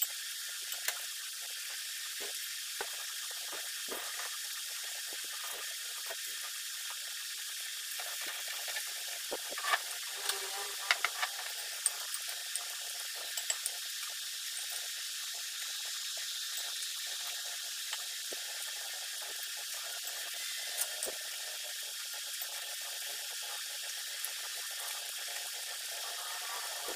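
Metal tongs tossing seaweed in water in an enamel bowl: light clicks and taps of metal on the bowl, with wet swishing, a cluster of louder clicks about ten seconds in. A steady hiss runs underneath.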